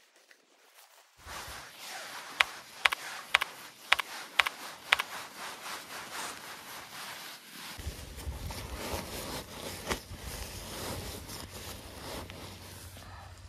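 Synthetic camping fabric rustling and scraping as it is handled and rolled up, with six sharp clicks about half a second apart about two seconds in. A low rumble joins the rustling about eight seconds in.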